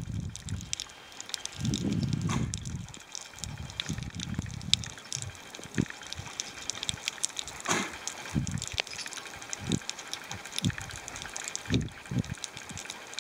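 Water heard through an underwater camera: muffled low rushes and sloshing as it moves through the water in the first few seconds, then scattered sharp clicks and crackles.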